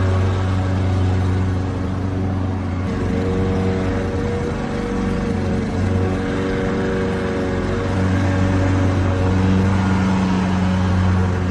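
Lawn mower engine running steadily with a low hum, its note wavering for a few seconds in the middle before settling again.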